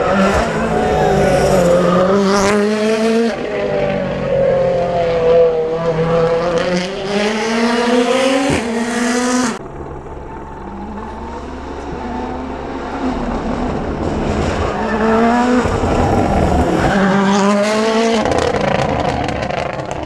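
Rally car engine driven hard through a tarmac hairpin, the revs rising and falling with repeated gear changes and lifts. The sound drops away abruptly about nine and a half seconds in, and a few seconds later the engine is heard revving up through the gears again.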